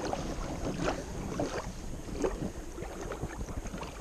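Wind buffeting the microphone and small waves lapping at a rocky shoreline, with scattered light clicks and taps.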